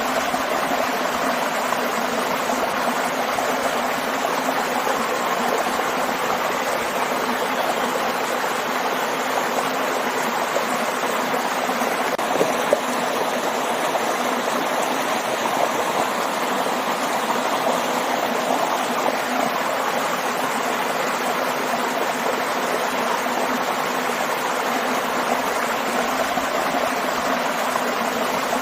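Waterfall and stream: water rushing and splashing steadily.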